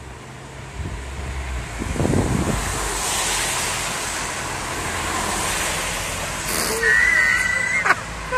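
A car driving past on the road, its tyre and engine noise swelling and then fading. Near the end comes a short, high, wavering squeal, followed by a couple of sharp clicks.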